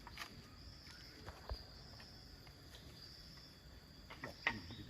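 Insects chirring steadily in a high, even tone, with a few faint scattered clicks and knocks, the sharpest near the end.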